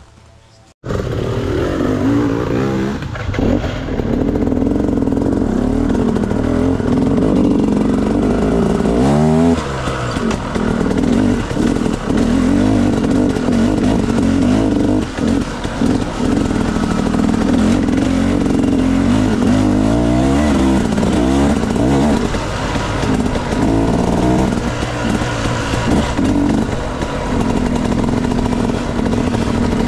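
Dirt bike engine running hard, cutting in suddenly just under a second in. It revs up and down with the throttle, with clear rises and falls in pitch about nine seconds in and again around twenty seconds.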